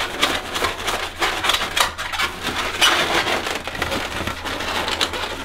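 Inflated latex 260 modelling balloons squeaking and creaking as they rub against each other while one is pushed through a loop and the pair is twisted, a dense run of short rubbery squeaks.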